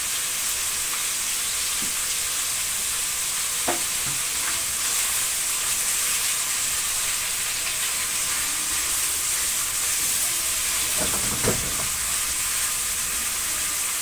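Diced beef liver sizzling steadily in hot oil in a nonstick frying pan while a silicone spatula stirs it, with two short knocks about a third of the way in and near the end.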